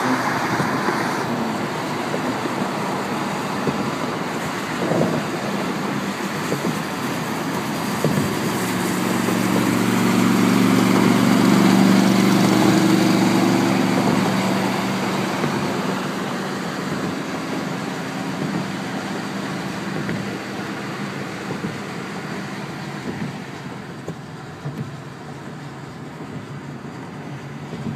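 Car driving at highway speed, heard from inside the cabin: steady road and tyre noise, with a low droning hum that swells to its loudest about twelve seconds in and fades a few seconds later.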